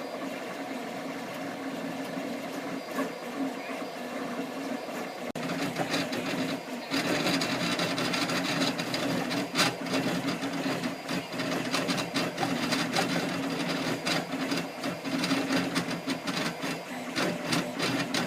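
3D printer's stepper motors running through a print, a steady whirring hum with a quick patter of short ticks from the moving head. It grows louder about five seconds in and again about seven seconds in.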